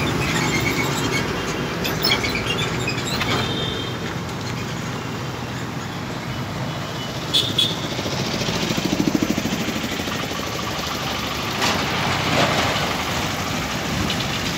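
Roadside traffic noise: a steady wash of passing vehicles, with a few brief sharp sounds and a short pulsing sound about two-thirds of the way through.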